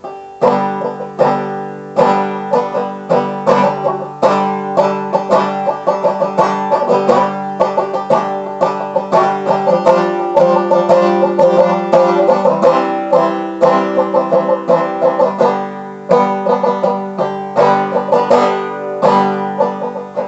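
Banjo picking an instrumental break: a quick, even run of plucked notes in a country style.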